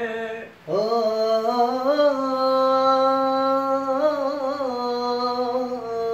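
A man singing unaccompanied in Arabic mawwal style. After a short breath about half a second in, he rises into one long held note, with small wavering ornaments about two and four seconds in.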